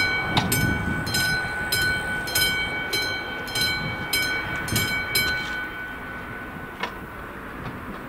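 Classic electromechanical level-crossing bell (AŽD 71 crossing) ringing at a little under two strikes a second while the barrier boom lowers. It stops about five seconds in, once the barrier is down, leaving a fading ring over a low background rumble.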